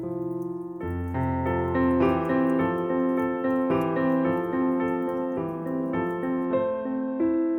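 Background piano music: a gentle, steady pattern of notes.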